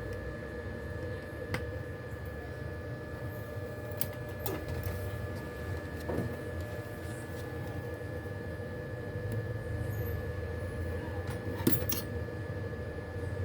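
A few light, sharp clicks and taps of small tools and phone parts being handled on a work surface, over a steady low rumble and a faint constant hum. The loudest click comes near the end.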